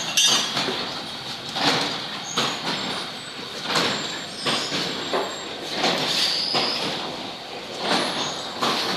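Water-bagging machine running on a production line, with a sharp mechanical knock every one to two seconds over a steady clatter and brief high squeaks.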